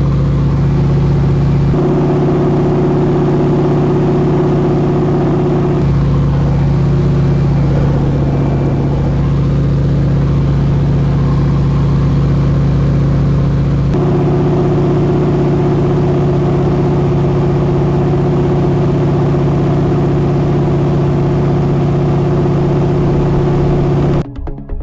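North American T-6 Harvard's nine-cylinder Pratt & Whitney R-1340 Wasp radial engine and propeller running steadily in flight, heard from inside the cockpit. The steady drone shifts abruptly in tone a few times.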